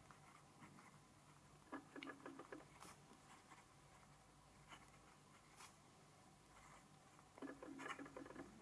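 Faint scratching of a fine fountain-pen nib writing on smooth 90 g/m² Fabriano Ecoqua paper, in two short spells about two seconds in and near the end, with a few soft ticks between.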